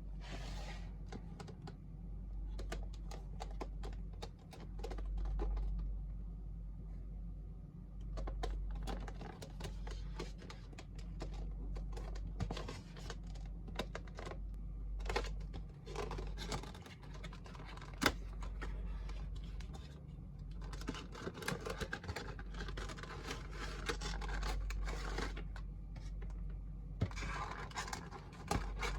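Packaging being handled and opened by hand: scratching, rubbing and many small clicks and taps, coming and going in patches, over a steady low hum.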